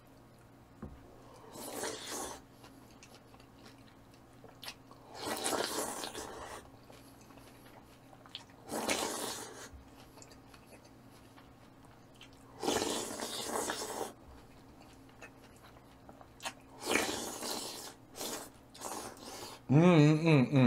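Close-miked eating: about five mouthfuls of tuna sashimi taken a few seconds apart, each a wet, noisy second-long burst of biting and chewing. A short vocal sound comes right at the end.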